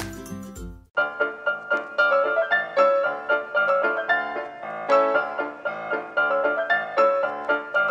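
Background piano music, a light melody at a steady tempo. About a second in, a different, bassier tune cuts off and the piano piece begins.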